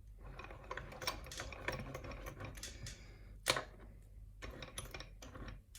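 Irregular small clicks, taps and rattles of a padlock and its fittings being handled and set up, with one louder knock about three and a half seconds in.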